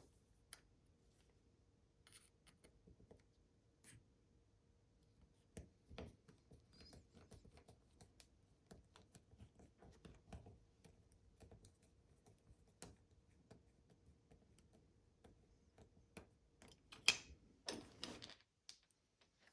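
Faint, scattered clicks and light scraping of a small screwdriver working on a plastic car key fob, with a louder burst of scraping near the end.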